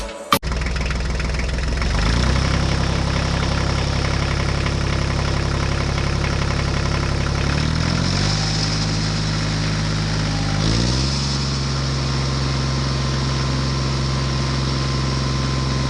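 Tractor engine running steadily. Its pitch steps up about two seconds in, again about halfway through, and once more about two-thirds of the way through.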